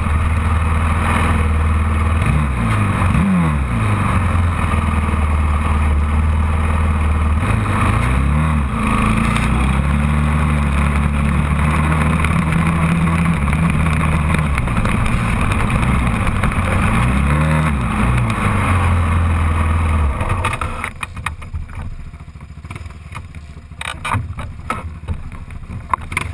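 Quad (ATV) engine running hard on sand, its pitch briefly dipping and climbing again three times as the throttle is eased and reapplied. About twenty seconds in, the engine sound drops away as the quad stops, leaving only faint noise and a few clicks.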